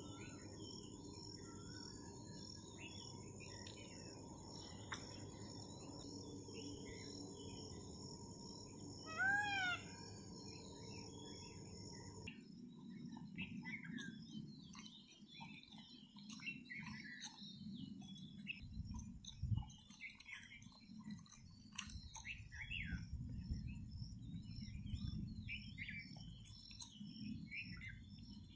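Many small birds chirping in a dawn chorus over a steady high-pitched drone. A third of the way in, one loud bird call rises and falls in pitch over the chorus, and a low background hum drops out soon after.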